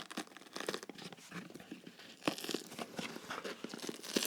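A cardboard-like midsole, not leather, being torn and ripped apart from a shoe: a run of crackling tears and crunches, loudest a little over two seconds in.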